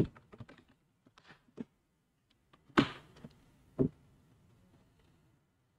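Scattered computer keyboard keystrokes: a quick run of light taps in the first second and a half, then two louder clicks about three and four seconds in.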